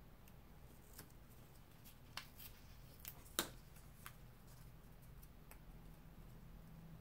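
Quiet paper handling while a card is assembled: a few light clicks and taps of paper pieces being set down and pressed, the loudest about three and a half seconds in, over faint room tone.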